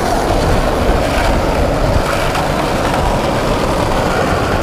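Skateboard wheels rolling over asphalt, a loud steady rumble.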